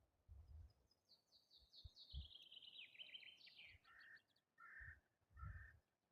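A songbird sings a fast trill of notes that fall steadily in pitch, followed by three short, lower calls spaced under a second apart. Faint low rumbles come and go underneath.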